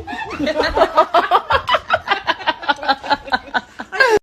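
A person laughing hard in a fast, even run of short pitched 'ha' pulses, about six or seven a second, which cuts off abruptly near the end.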